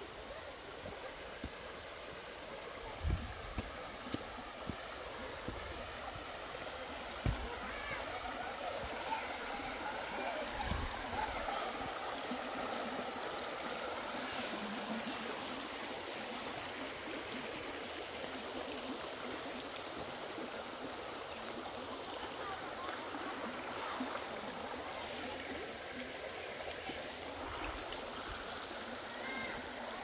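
Waterfall water rushing and splashing steadily, with a few low thumps in the first third.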